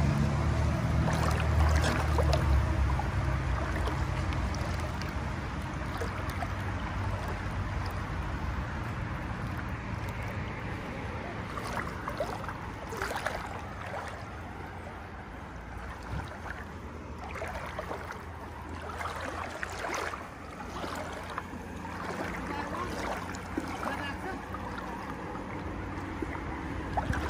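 Shallow stream water swishing and splashing around legs as a person wades through it, with repeated small splashes and a low rumble in the first few seconds.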